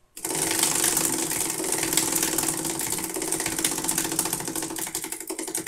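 Prize wheel spinning, its clicker ticking rapidly against the pegs, the clicks spreading out as the wheel slows down.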